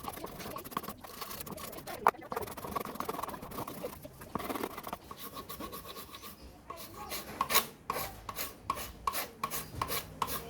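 Hand tool scraping back and forth on a piece of PVC, as in filing or rasping a spacer to shape. The scraping turns into quick, even strokes, about two or three a second, in the last few seconds.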